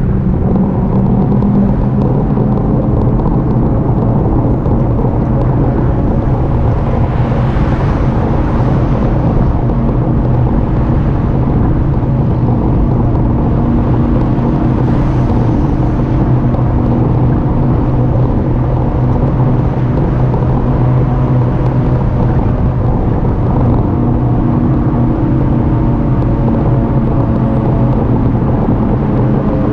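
Steady wind and road rumble from an e-bike riding along, with a constant low hum underneath. Two vehicles swell past, about eight and fifteen seconds in.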